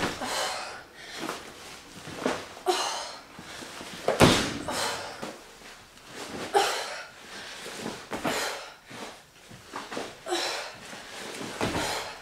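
A woman breathing hard during a sandbag workout, blowing out forceful breaths every one to two seconds, with a heavier thud about four seconds in.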